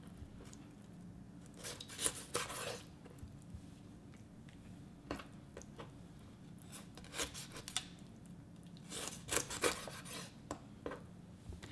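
Chef's knife cutting a raw chicken wing apart at its joints on a wooden cutting board: faint scattered scrapes and soft knocks of the blade against bone and board, with pauses between, clustered about two seconds in, again around five and seven seconds, and most densely near the end.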